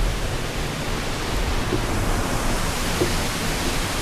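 Steady rushing roar of Savage Falls, a waterfall running strong after heavy rain.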